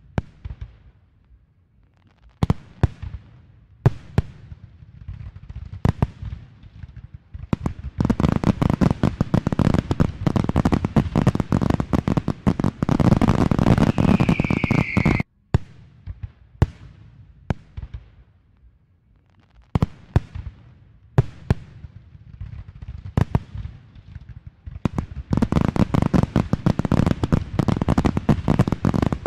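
Fireworks display: aerial shells bursting with single sharp bangs, building into a dense barrage of rapid bangs and crackling, with a whistle near the middle. The barrage cuts off suddenly about halfway, then single bangs resume and build into a second dense barrage near the end.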